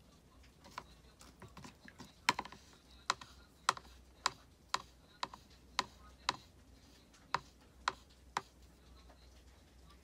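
A dozen or so sharp clicks, about two a second, starting a couple of seconds in and stopping shortly before the end.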